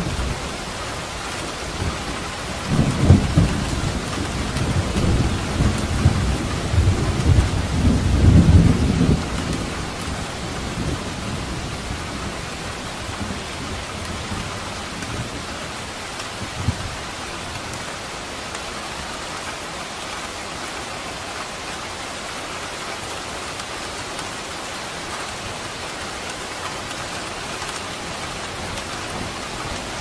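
Thunderstorm: steady rain throughout, with a long roll of thunder that builds about two and a half seconds in and dies away by about ten seconds, and a brief low thump about halfway through.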